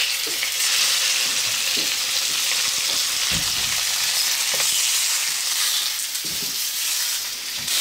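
Hapuka steaks sizzling steadily in hot butter and oil in a cast-iron skillet. The sizzle starts as the fish goes into the pan, with a couple of faint knocks partway through.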